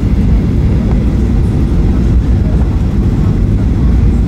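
Airliner cabin noise during the low approach to landing: a steady, loud, deep rumble of the jet engines and rushing air heard from a window seat.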